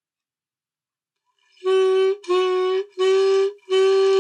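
Saxophone mouthpiece and neck, without the body, blown in four separate held notes at the same steady pitch, starting about a second and a half in; the last note is the longest.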